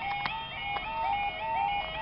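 Railway level-crossing barrier alarm sounding: an electronic two-tone warble that steps between a lower and a higher pitch about two and a half times a second. A couple of faint clicks come in the first second.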